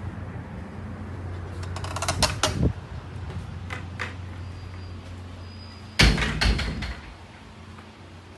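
A glass storefront door is opened, with its handle and latch clicking about two seconds in. Some six seconds in it shuts with a loud thud and a short rattle, over a steady low hum.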